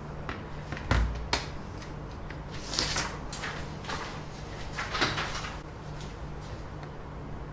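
Small hard objects being handled on a work surface: two sharp knocks about a second in, then a couple of brushing scrapes, over a steady low hum.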